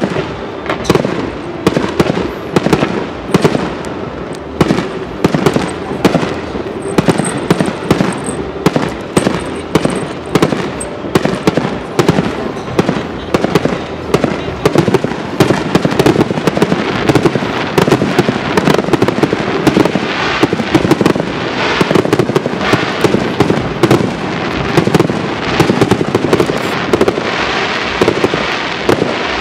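Aerial firework shells bursting in a rapid, continuous barrage, several bangs a second, growing denser and louder in the second half.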